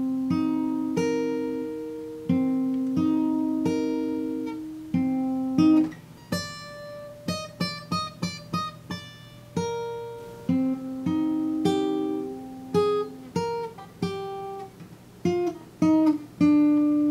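Acoustic guitar picked by hand, playing a slow melody of single notes that ring out and fade, with a quicker run of short plucked notes around the middle.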